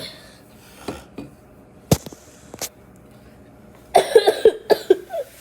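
A sick child coughing, a quick run of several harsh coughs near the end, after a few sharp clicks and knocks.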